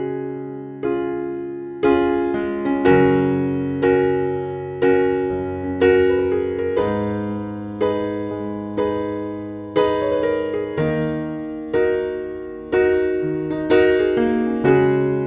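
Background music: chords struck about once a second, each ringing out and fading before the next.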